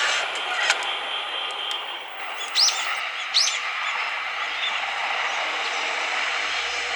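Two short rising bird chirps, about two and a half and three and a half seconds in, over a steady rushing background noise, with a single sharp click just under a second in.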